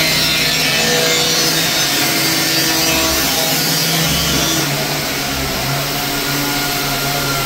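Power tool running steadily: a loud hiss over a steady motor hum, cutting in and out abruptly.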